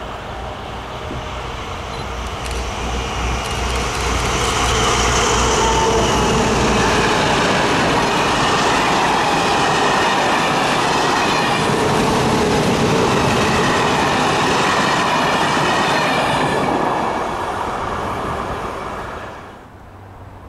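SNCF BB 67400 diesel locomotives pass with a low engine throb, followed by a long train of coaches and hauled locomotives rumbling and clattering over the rails with some wheel squeal. The noise builds, holds for about ten seconds, then fades and cuts off suddenly near the end.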